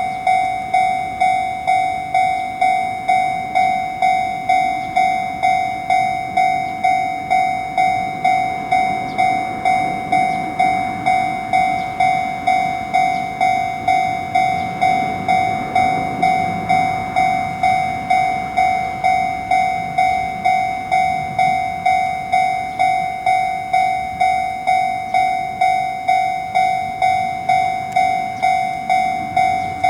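Japanese level-crossing alarm bell ringing its repeating electronic "kan-kan" tone, about two strikes a second. A train passes in the middle, loudest a little after halfway.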